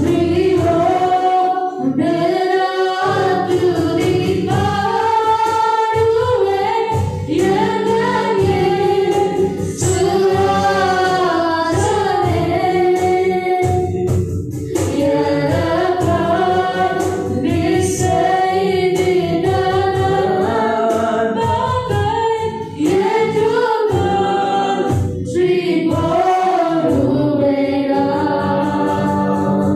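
A Tamil Christian worship song sung through microphones and a PA, with a woman's voice leading and other voices joining. Sustained instrumental accompaniment runs underneath.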